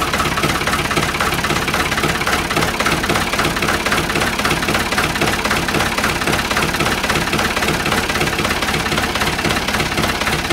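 Ford diesel tractor engine idling steadily with a rapid diesel clatter, freshly started from cold after the glow plugs were warmed and the engine plugged in to preheat.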